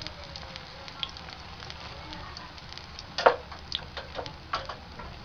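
Besan pakoras deep-frying in hot oil: a steady sizzle with scattered pops and crackles, and one sharp crack a little over three seconds in.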